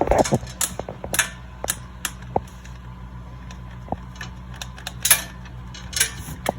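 Stainless steel exhaust header knocking and clanking against metal as it is worked into place, with irregular sharp knocks, a few ringing briefly, over a steady low hum.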